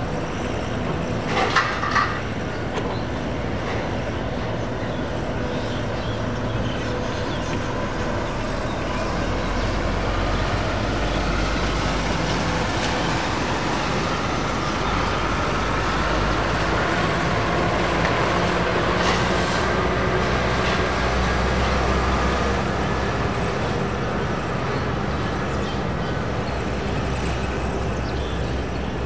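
Boeing 787 airliner's turbofan engines running as it rolls along the runway after landing: a steady rumble with a faint engine whine drifting slightly in pitch, a little louder through the middle. A few short clicks near the start.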